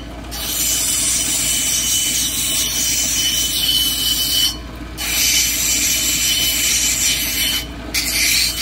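A stone on a dop stick being ground against a cabochon machine's spinning wheel, taking the corners off the stone's dome. It makes a steady hissing grind over the motor's low hum. The grind breaks off briefly about halfway through and again near the end as the stone is lifted from the wheel.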